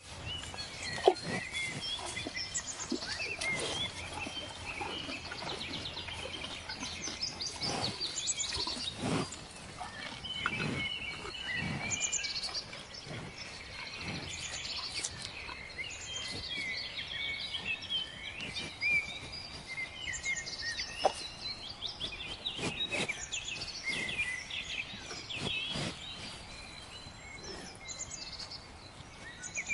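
Cattle grazing: grass ripped off in short, sharp tears at irregular intervals of a second or two. Many birds chirp throughout.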